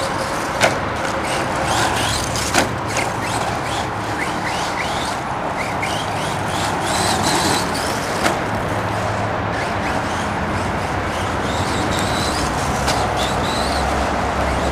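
Brushless electric RC monster truck driving on a track, its motor giving short high whines that rise in pitch as it accelerates. A few sharp knocks, the loudest about half a second in and again near two and a half seconds, come over a steady background of tyre and track noise.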